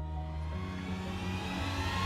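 Background music holding steady notes, joined about half a second in by a rushing noise that swells and keeps growing louder.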